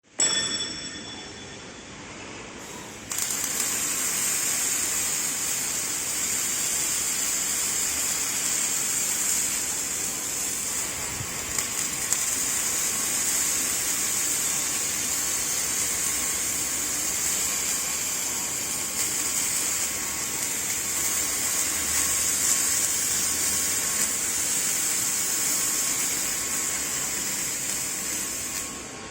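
Automatic Kwikstage scaffolding-standard welding machine at work: a steady, loud hiss that cuts in abruptly about three seconds in and eases off near the end, after a brief ringing tone at the very start.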